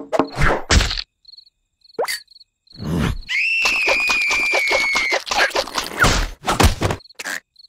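Cartoon sound effects without dialogue. There are quick hits in the first second, then a long high squeal with a fast flutter from about three to five seconds in, and a few more hits near six seconds. Short high cricket-like chirps sound in the quiet gaps.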